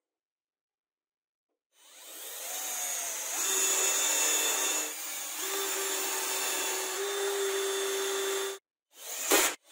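Cordless drill running steadily as it bores into the edge of laminated chipboard, starting about two seconds in, its motor pitch stepping up twice. It stops near the end, followed by two short bursts.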